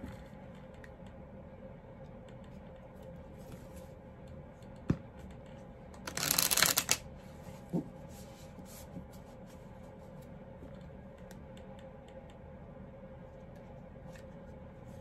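Oracle cards being handled and shuffled by hand: soft card noises with a sharp tap about five seconds in, then a loud, short rush of cards about six seconds in.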